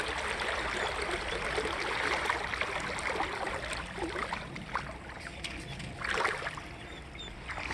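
Creek water rushing steadily over rocks in a strong current, easing slightly about halfway through.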